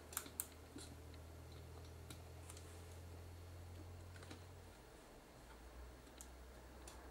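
Faint, scattered small clicks and taps as a flat tool and fingers pry at the LCD connector on the metal chassis of a stripped-down Sony DSC-H10 digital camera. A low hum runs underneath and stops a little past halfway.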